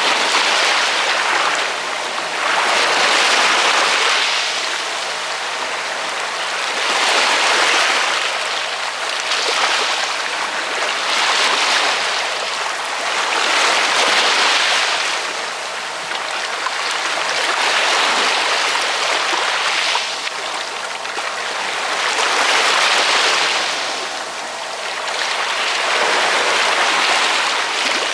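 Ocean waves washing onto a shore, a continuous hiss of surf that swells and ebbs roughly every two to four seconds.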